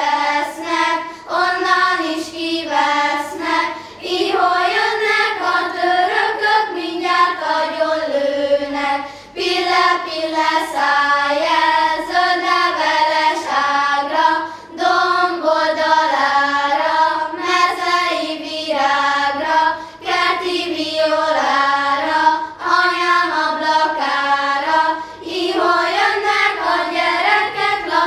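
A children's choir singing together without accompaniment, in phrases with short breaks about every five seconds.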